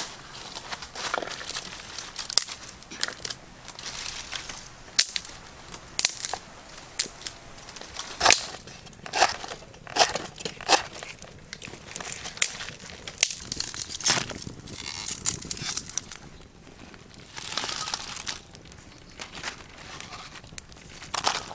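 Irregular crunching, crumpling and tearing noises made up of many sharp snaps at uneven intervals, with a longer scraping rustle near the end.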